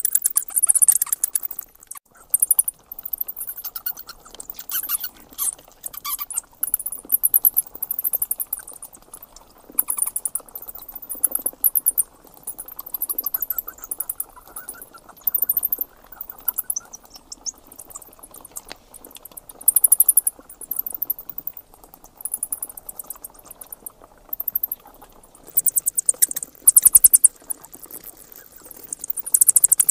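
Bats calling: rapid trains of high-pitched clicks and squeaky chirps in bouts of a second or two, with short pauses between them.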